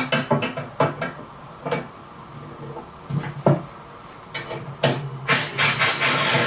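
Hand tools clicking and knocking against the sofa bed's metal frame while a nut is worked loose with a wrench. The knocks come irregularly, with a busier stretch of clatter about five seconds in.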